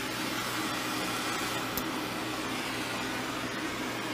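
Hand-held glassworking gas torch burning with a steady hiss, its flame turned up high, with a faint tick about two seconds in.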